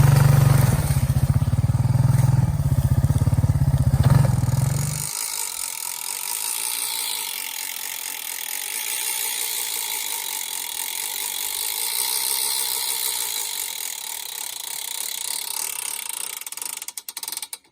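A Honda ATV engine running steadily, cut off abruptly about five seconds in; after that, a fainter steady hiss whose pitch slowly rises and falls, ending suddenly.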